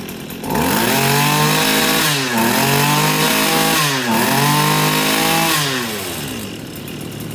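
Tanaka brush cutter's small two-stroke engine (34 mm bore) revved up by hand throttle: it climbs to high speed about half a second in, dips briefly twice while held high, and falls back to idle near the end.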